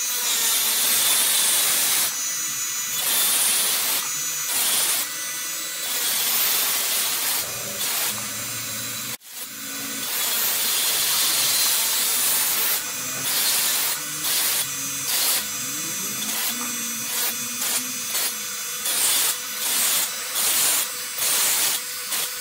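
Dremel-style rotary tool with a thin cutoff wheel running at high speed and grinding into the plastic shell of an AirPod charging case: a steady motor whine under a high gritty hiss. It cuts out for a moment about nine seconds in, and in the later part the cutting sound swells and eases about once a second as the wheel bites in and lifts off while working around the case.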